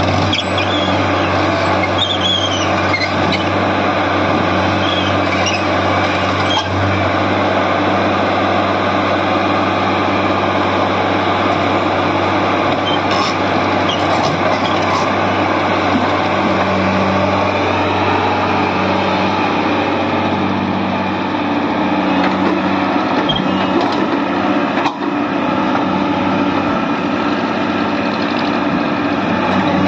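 Tata Hitachi 110 crawler excavator's diesel engine running steadily under load while it climbs onto a lowbed trailer, with a few high squeals in the first few seconds and occasional brief knocks.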